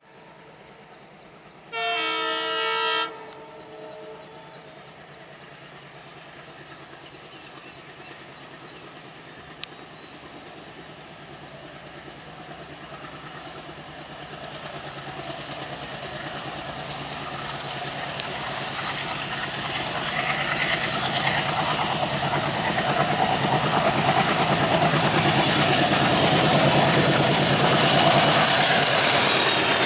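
Indian Railways WDG-3A diesel locomotive (ALCO 16-cylinder engine) sounds its horn once, a blast of just over a second, near the start. Then the locomotive's engine and the wheels of the express grow steadily louder as the train approaches at speed, loudest near the end.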